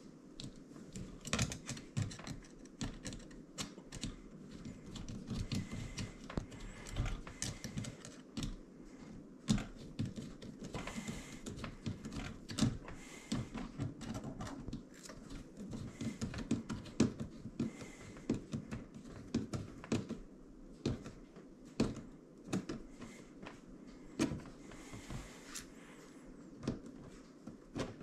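Irregular small clicks and taps, a few a second at times, from a screwdriver and metal parts as a hose clamp is tightened on a dishwasher drain pump's rubber drain hose, with brief rustling of handling.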